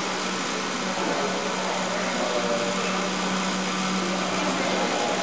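A small motor running steadily: a constant low hum with an even hiss over it.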